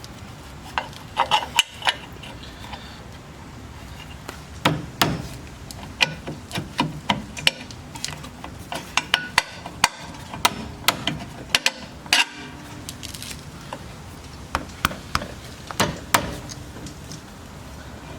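Irregular sharp metallic taps and clanks of hand tools and bolts while a lower control arm is fitted to a Jeep Wrangler JK's frame bracket, in clusters with short gaps.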